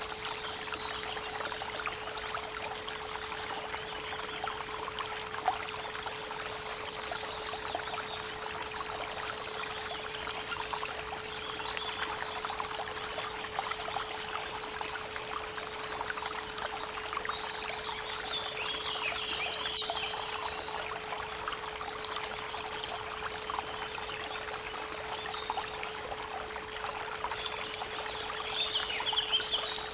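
Creek water running steadily, with birds chirping and trilling now and then, most around the middle and near the end, over a steady 432 Hz pure tone.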